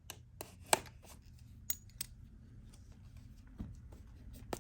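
Scattered sharp clicks and snips of a pocket knife being worked against a plastic packaging bag to cut it open, the loudest click about three-quarters of a second in.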